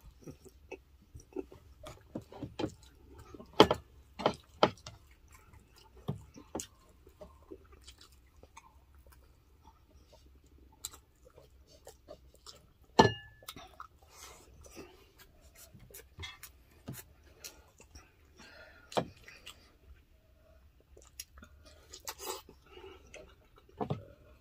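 Close-miked chewing and wet mouth sounds of eating grilled chicken and milkfish by hand, with finger licking: scattered lip smacks and clicks, a few sharp louder ones about four seconds in and again near the middle.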